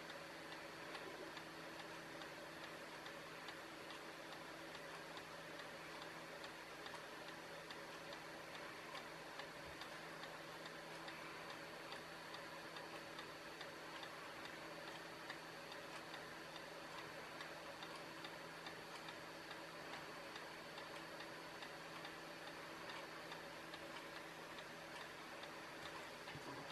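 Faint steady ticking over a constant low hum.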